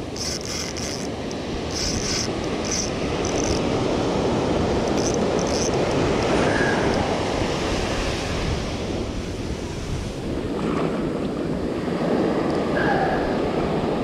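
Ocean surf breaking and washing on the shore, swelling and easing, with wind buffeting the microphone.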